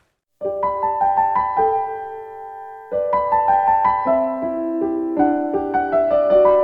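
Background music: a gentle piano melody with chords, starting about half a second in and picking up again about three seconds in.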